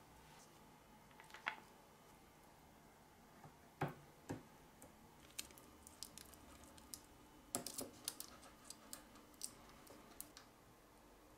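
Faint, scattered clicks and taps of hands handling LED strip and small pieces of tape on an aluminium bar, with a few soft knocks in the first half and a run of sharp little clicks in the second half.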